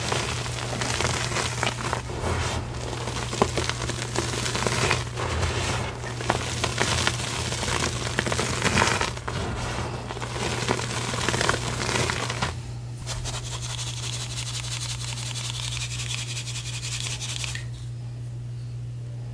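Reformed gym chalk being crushed and crumbled between bare hands: dense crunching and crackling with many small snaps, easing to softer, quieter crumbling about two-thirds of the way through. A steady low hum runs underneath.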